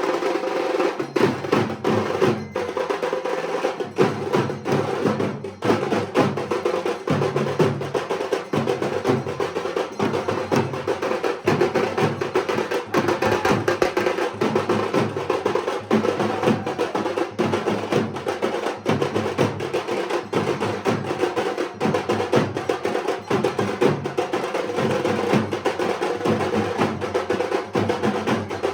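Dhak drums played continuously in fast, steady, rhythmic strokes: the traditional drumming of Durga Puja.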